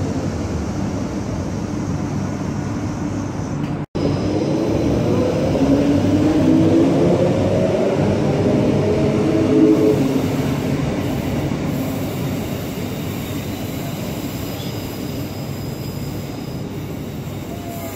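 Queensland Rail electric multiple-unit train running past along the platform, a whining tone sliding up and down in pitch over its rumble, then fading as it pulls away. The sound drops out for an instant about four seconds in.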